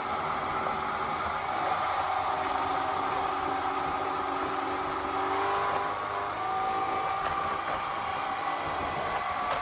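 Motorboat engine running steadily while the boat cruises, with a steady rush of noise beneath it.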